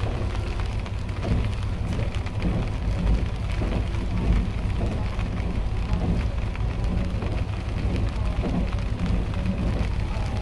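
Running noise of an IRT355 diesel railcar heard from the cab: a steady low drone of the engine and wheels on the rails, with a dense irregular crackle over it.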